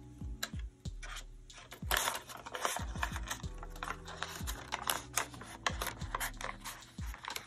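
Paper banknote and paper cash envelope rustling and crinkling as a twenty-dollar bill is slid into an envelope in a binder, with many light clicks and taps of handling.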